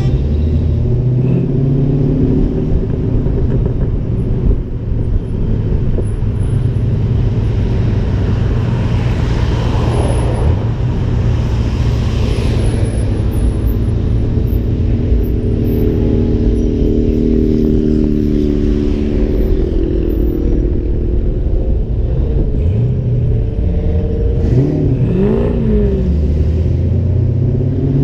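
Ford Mustangs driving together in slow city traffic, heard from outside the car: a steady low engine and road rumble, with engine notes from nearby cars coming and going and a brief rev that rises and falls near the end.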